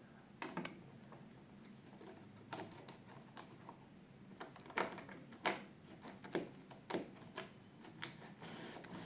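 Scattered light clicks and taps, about a dozen at irregular intervals, from hands working a model-railway controller and locomotive on the track, with a short hiss near the end.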